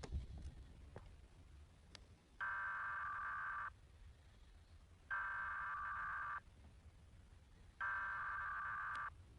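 Emergency Alert System SAME header data bursts, pitched down: three identical buzzing digital data tones, each about a second and a quarter long and evenly spaced. They mark the start of a new alert.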